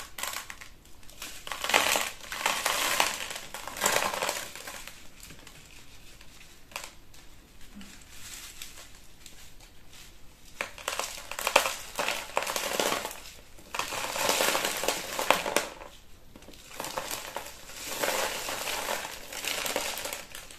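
Granular mineral substrate (Lechuza Pon) shifting and rattling in irregular bouts as an alocasia is worked out of it by hand.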